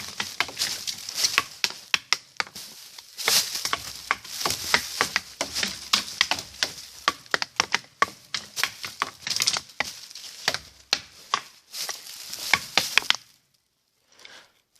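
Two sticks striking tree trunks in quick, irregular flurries of sharp knocks, several a second and changing in pace, stopping about thirteen seconds in.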